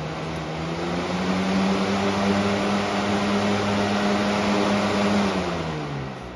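Air King 9723 20-inch box fan speeding up to high, its blade hum rising in pitch and then holding steady over a broad rush of air. About five seconds in the hum slides down in pitch and the sound fades as the fan spins down.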